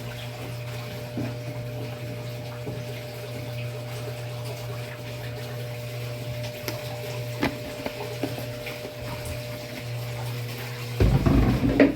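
Washing machine running with a steady motor hum and water moving inside it. Near the end comes a short run of loud knocks and clatter.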